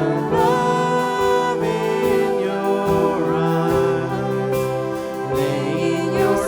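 Slow worship music from a church band, a passage with sustained chords and a wavering melody line but no clear sung words.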